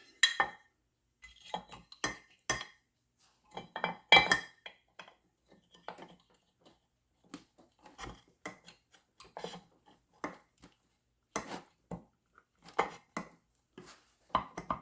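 Irregular metallic clicks and clinks of hand-handled metal parts and tools, some with a brief ringing, the loudest about four seconds in.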